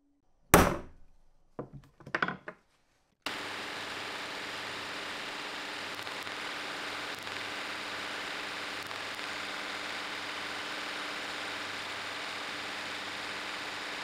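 Steel number punches clacking down on a wooden bench, one loud clack and then two lighter ones, followed from about three seconds in by a small milling machine running steadily as its fine cutter grooves crosshatch serrations into the wrench jaw.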